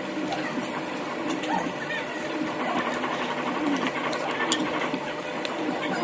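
A steady mechanical hum with faint voices underneath and a few sharp clicks.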